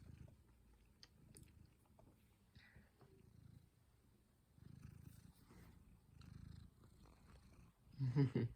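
Domestic cat purring close to the microphone, a soft low rumble that swells and fades about every second and a half with its breaths. Near the end a brief, louder sound breaks in.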